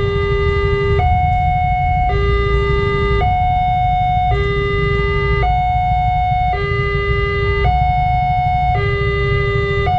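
Electronic two-tone warning siren of a railway level crossing, switching steadily between a low and a higher tone about once a second, warning of an approaching train. A steady low rumble runs underneath.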